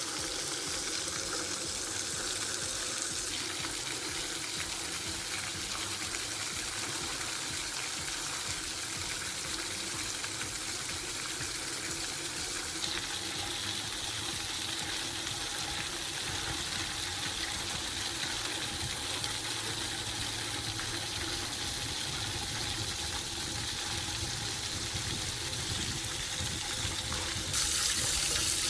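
Splash pad water jets spraying and splashing in a steady rush, the mix shifting abruptly a couple of times and growing louder near the end.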